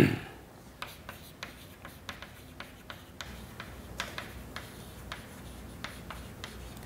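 Chalk writing on a chalkboard: a string of light taps and short scratches as letters are chalked, after one brief louder thump at the very start.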